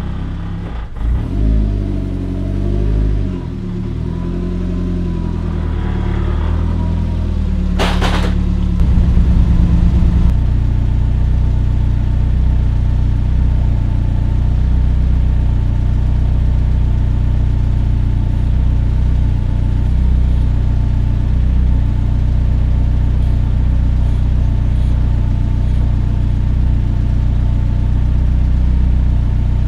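A turbocharged Mazda Miata's four-cylinder engine running, its pitch shifting over the first several seconds before it settles into a steady idle. There is one sharp clunk about eight seconds in.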